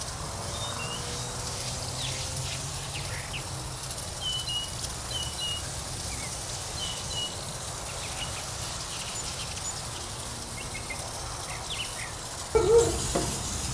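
Birds chirping now and then over a steady low background hum, with a short louder sound near the end.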